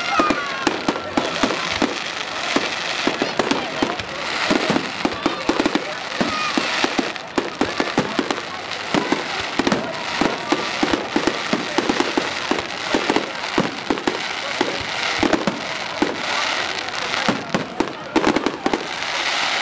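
Fireworks display going off in a continuous rapid barrage of crackling bangs and pops, many to the second.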